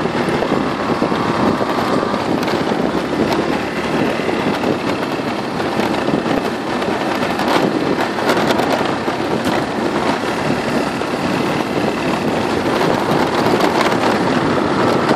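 Motor scooter riding fast over a bumpy dirt track: the engine running under heavy wind noise on the microphone, with scattered knocks and rattles from the ruts.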